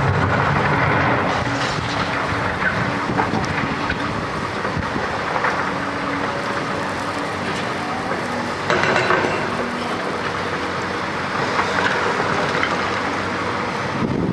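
Hyundai crawler excavator running under load, with scattered clanks and scrapes of concrete rubble and a louder rush of noise about nine seconds in.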